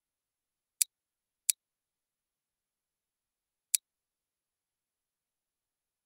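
Three sharp computer mouse clicks, two close together about a second in and one more near the middle, with dead silence between them.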